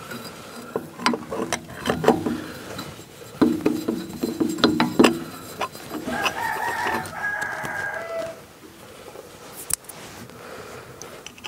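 A rooster crows once: a cock-a-doodle-doo of about two seconds, starting some six seconds in and ending on a falling note. Before it come sharp metallic clinks and knocks from hands and tools working on the tractor's fuel filter housing.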